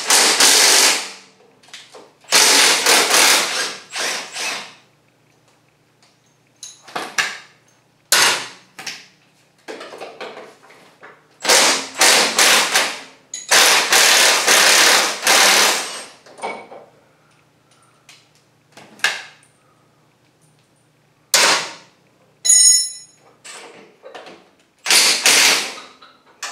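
Milwaukee cordless impact wrench hammering in repeated short bursts of one to three seconds each, backing out the half-inch bolts that hold a zero-turn mower's Hydro-Gear transaxle.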